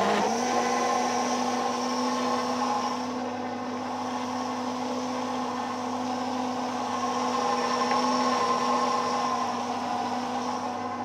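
Electric jug blender running steadily, blending lemon juice, water, sugar and fresh mint leaves into lemon-mint juice. It comes back up to speed right at the start, then holds one even motor hum.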